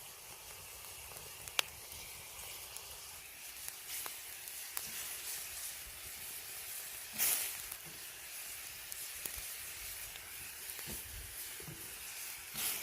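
Food sizzling in hot fat: a steady hiss with scattered sharp pops, and a louder surge of sizzle about seven seconds in.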